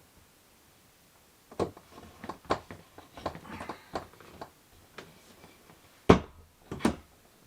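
Irregular clicks, knocks and clatter of wardrobe parts and hardware being handled and fitted, ending in two sharp knocks about six and seven seconds in.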